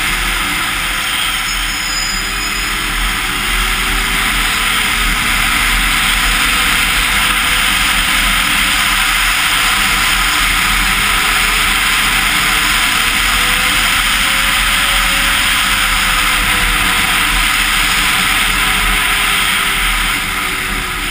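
Arctic Cat Crossfire 1000 snowmobile's two-stroke twin running under way, its pitch slowly rising and falling with the throttle. Over it is a steady rush of wind and track noise at the helmet-mounted camera.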